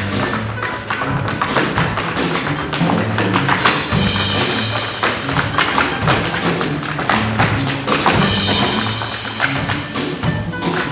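Rhythmic music with a repeating bass line under a dense run of sharp percussive taps and strikes.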